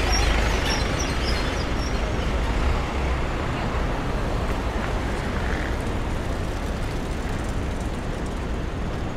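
Steady city street traffic noise: a continuous low hum of vehicle engines and tyres, a little louder in the first few seconds.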